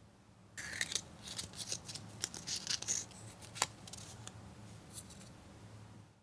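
Paper rustling and crinkling as a small folded paper leaflet is opened out and handled, with one sharper snap about three and a half seconds in.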